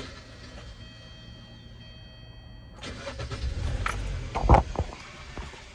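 Car engine starting about three seconds in and then running, with a loud thump a little over a second later.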